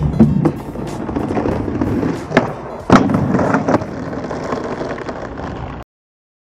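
Skateboard wheels rolling over rough asphalt with several sharp clacks of the board, one just after the start, then at about two and a half, three and nearly four seconds in, the one near three seconds the loudest. The sound cuts off abruptly near the end.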